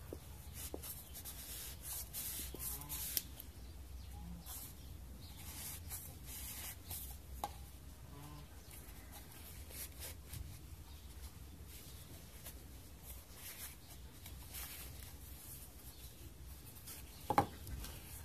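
Carbon fiber wick strip and small tin cans rubbing and scraping in the hands as the wrapped can is worked into a cat food can, with short scratchy hisses. A single sharp click about 17 seconds in.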